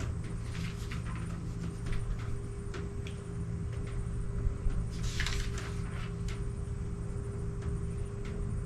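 Paper rustling and crackling as the pages of an instruction manual are turned, with a louder rustle about five seconds in, over a steady low hum.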